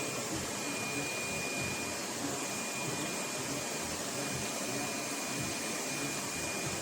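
LEFANT M310 Ultra robot vacuum running steadily, a constant suction noise with a thin high whine over it.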